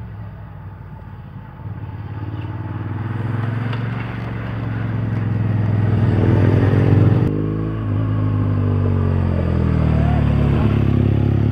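Motorcycle engine running as the bike rolls slowly toward the microphone, growing louder, with the engine pitch rising and falling about halfway through as the rider changes speed.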